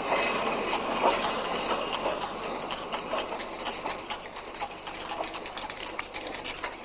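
Steady mechanical clattering and rattling, thick with small rapid clicks, growing gradually quieter toward the end.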